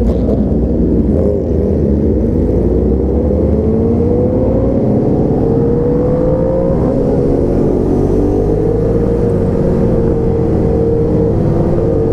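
Motorcycle engine running while riding, its pitch climbing gradually through the first half as it accelerates, then holding roughly steady, over a loud low rumble of wind on the helmet camera's microphone.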